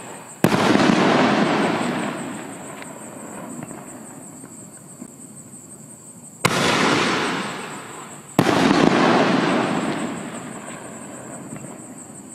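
Reloadable consumer firework shells fired from mortar tubes. About half a second in a shell bursts with a loud bang and a long crackling, echoing tail that fades over a couple of seconds. About 6.5 s in the next shell lifts off with a sharp bang, and it bursts about two seconds later with another loud bang and a long fading tail.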